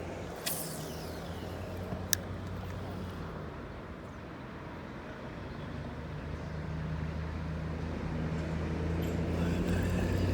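A low, steady mechanical hum that grows louder in the second half, with a sharp click about two seconds in.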